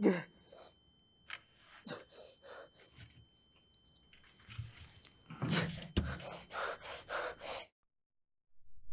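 A person gasping sharply, then taking irregular short breaths and gasps, growing denser and louder about halfway through, with a faint steady high tone underneath for the first five seconds.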